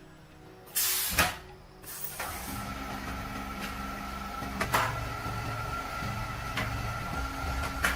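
A short loud rush of noise about a second in. From about two seconds in, a machine runs steadily with a low hum and a thin high whine, and a few sharp clicks come through it.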